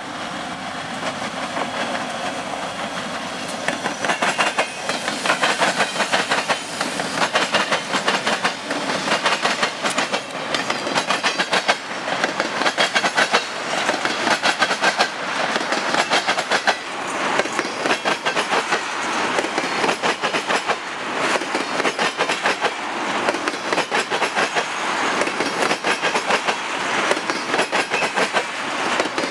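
A freight train of black tank cars passing close by. There is a steady rumble for the first few seconds as the diesel locomotives approach. From about four seconds in, the steel wheels keep up a rapid clickety-clack over rail joints and the diamond crossing.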